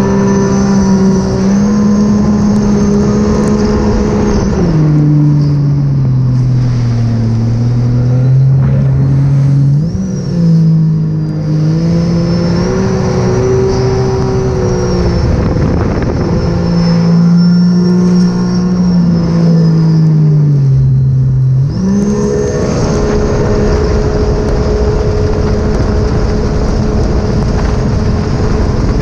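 Sea-Doo RXP-X 300 personal watercraft's supercharged Rotax 1630 ACE three-cylinder engine running at speed. The engine note eases down about five seconds in, picks up again near ten seconds and sags once more. About 22 seconds in it rises sharply and then holds steady.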